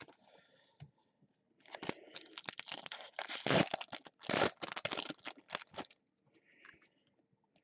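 Trading-card pack wrapper being torn and crinkled: a few seconds of rough tearing and rustling.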